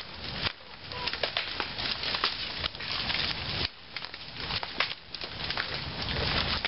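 Dry wood and brush crackling and snapping in many small, irregular clicks, with a few louder snaps.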